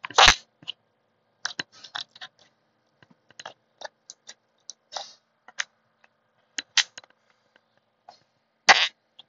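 Putty-like slime squeezed in a small container, making short, irregular squelches that sound like farts, with a louder one just after the start and another near the end.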